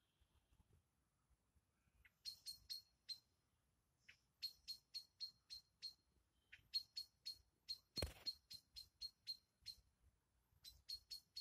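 Short high-pitched chirps from an animal, repeated in runs of several at about four a second, with short pauses between the runs. A single brief knock or rustle about eight seconds in is the loudest sound.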